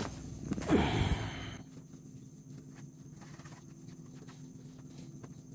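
A brief loud sound with a falling pitch about a second in, then faint dry rustling and small ticks from a hand stirring through a wooden tray of mealworms and their frass.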